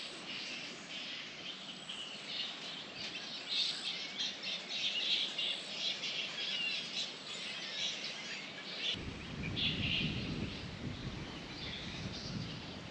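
Birds chirping and calling in short, repeated bursts. A low rumble joins suddenly about nine seconds in.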